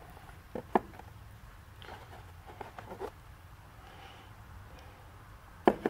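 A few faint clicks and taps from the hard plastic Dyson DC17 cyclone-assembly parts being handled and fitted together, with one sharper click near the end.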